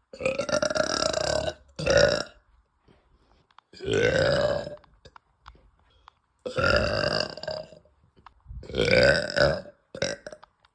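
A woman burping after eating: a run of about six loud belches, most lasting about a second, with short silent gaps between them. One burp rises in pitch.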